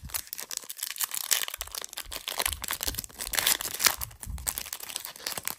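A Topps Chrome baseball card pack's foil wrapper being torn open and crinkled in the hands: a dense, irregular run of sharp crackles.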